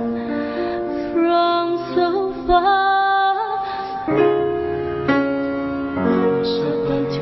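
A woman singing a slow ballad to soft orchestral accompaniment, holding notes with vibrato.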